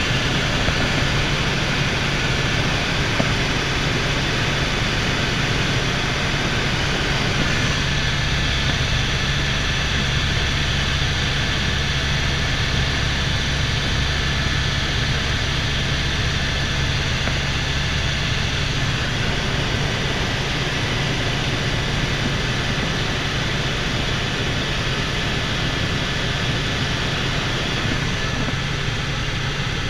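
Helicopter in flight heard from inside the cabin: a steady low drone of rotor and engine with a thin high whine above it.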